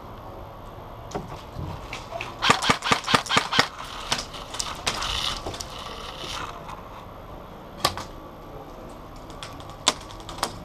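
Airsoft gun firing a quick string of about eight shots in just over a second, followed later by two single sharp cracks.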